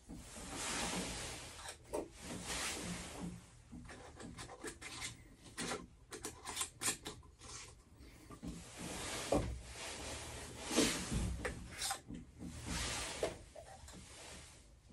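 Repeated rubbing and scraping strokes, with scattered clicks and knocks, as plumbing pipe and fittings are handled and worked on.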